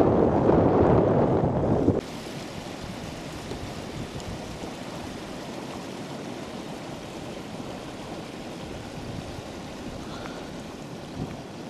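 Wind buffeting the microphone for about two seconds, cutting off suddenly to a softer, steady rush of wind over the hillside.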